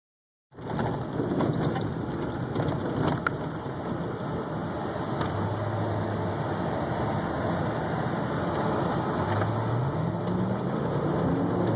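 Ford Raptor pickup's 6.2-litre V8 running as it drives over a rough off-road track, with steady road and body noise and scattered knocks and rattles. The engine note climbs in pitch over the last few seconds as the truck accelerates.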